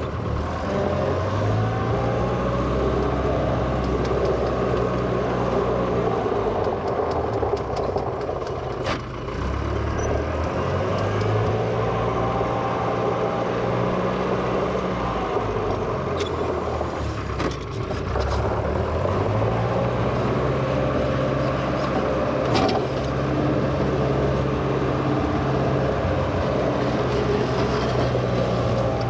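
1963 Volvo LM225 wheel loader's engine running under changing load, its pitch stepping up and down, with a fainter whine above it. It dips briefly about nine seconds in and again around seventeen seconds in.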